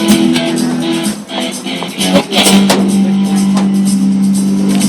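Background music with guitar and drums, played over a public address system.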